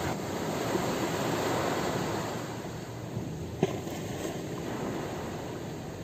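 Ocean surf washing on a shore, a steady rushing hiss that swells a little and then eases. A single brief click sounds a little past halfway.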